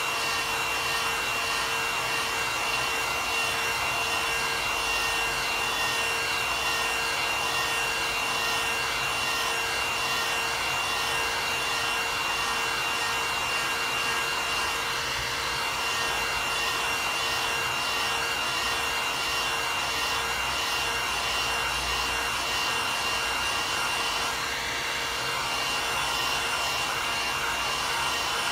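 Heat gun blowing steadily: a constant rush of hot air with a thin, steady high whine from its motor.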